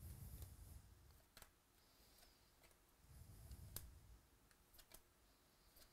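Faint handling of trading cards: a few soft clicks and light rustles as cards are flipped and sorted by hand.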